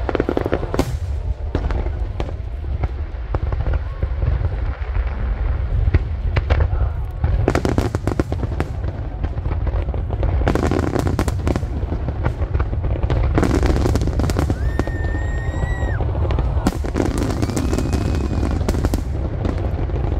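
Aerial fireworks display: a continuous low rumble of shells bursting, dense with sharp bangs and crackles. About three-quarters of the way through comes a high, steady whistling tone lasting about a second.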